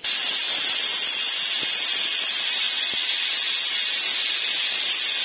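Stovetop pressure cooker whistling: a loud, steady hiss of steam escaping under the weight valve, starting suddenly and cutting off suddenly. This is the third whistle, the cue that the rice is cooked and the stove can be turned off.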